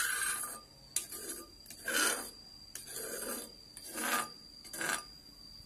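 Rasping scrapes of a kitchen utensil, short strokes about one a second, stopping about five seconds in.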